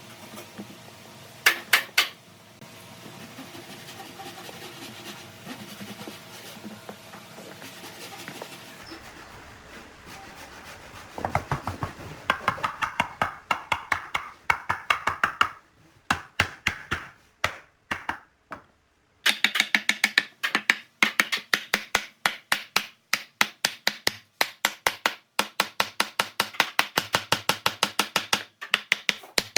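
Repeated sharp strikes of a hand tool on wood, evenly paced at about three blows a second, starting about a third of the way in after a stretch of low steady hum broken by two sharp knocks.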